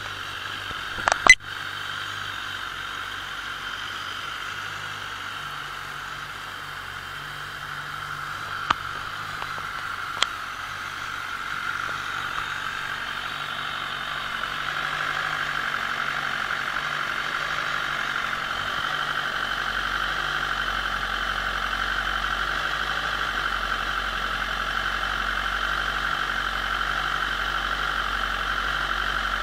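BMW S1000RR's inline-four engine idling steadily, with no revving. There are a few sharp clicks early on, and a higher-pitched hum grows louder about halfway through and then holds.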